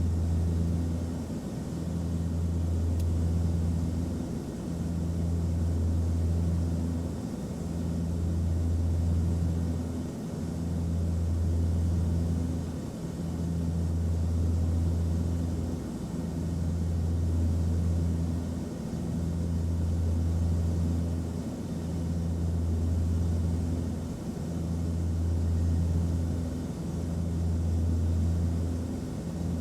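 Airplane cabin noise: a steady low drone with a soft hiss of airflow, pulsing gently in level about every two seconds.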